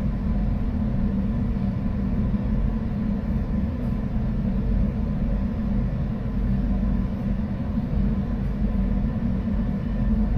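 A steady low rumble with a faint steady hum above it, unchanging throughout.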